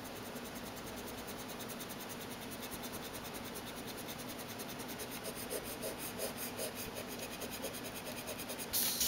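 Rubber friction-eraser nub of a Pilot FriXion gel pen rubbed back and forth on paper to erase the ink, a faint quick rubbing that grows more audible from about the middle. A brief louder noise comes just before the end.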